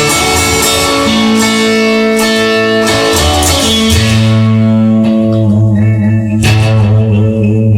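Guitar-led music: strummed guitar chords over a steady bass line.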